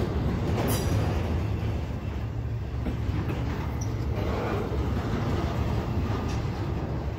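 Norfolk Southern intermodal freight train rolling past at close range: a steady low rumble of steel wheels on rail, with scattered short clicks from the passing cars.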